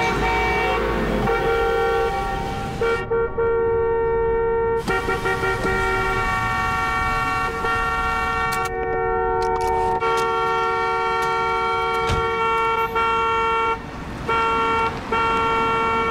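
Several car horns held down at once in stalled traffic, a steady overlapping blare at different pitches, with a couple of short breaks near the end.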